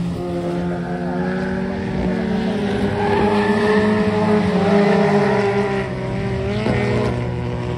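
Folkrace cars' engines racing on a dirt track, several engine notes rising and falling together. It grows louder as a car passes close about halfway through.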